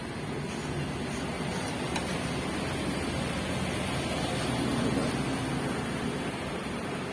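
A motor vehicle running, a steady rushing noise with a low hum that swells to a peak about five seconds in and then eases slightly.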